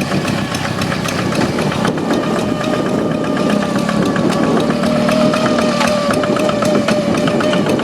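Hand tractor's blue Kubota diesel engine running steadily with an even, rapid firing beat and a high whine ("ngiung ngiung") that sinks slightly in pitch and then holds steady.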